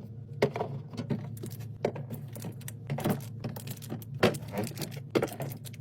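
Drinks and snacks being handled and set in place during a restock: irregular clinks, knocks and light scrapes, several a second, over a steady low hum.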